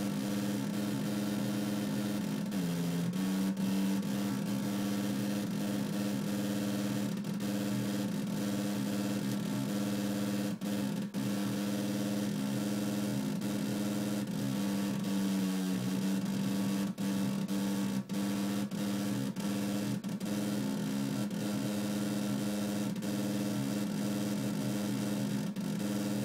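Chua's chaotic oscillator circuit played through a speaker: a steady, low, buzzing hum with rough, noisy overtones. The pitch dips briefly about two and a half seconds in and again about halfway through, and the sound breaks for an instant a few times.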